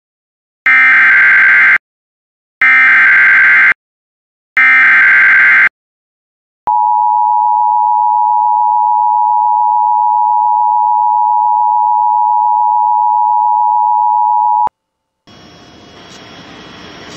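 Emergency Alert System SAME header: three harsh digital data bursts of about a second each, then the EAS two-tone attention signal held steady for about eight seconds and cut off sharply. Together they mark the start of a new alert, here a severe thunderstorm warning.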